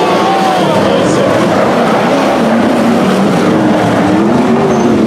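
A field of sprint cars racing on a dirt oval, their V8 engines loud and continuous, several engine notes rising and falling in pitch as the cars go through the turns and pass by.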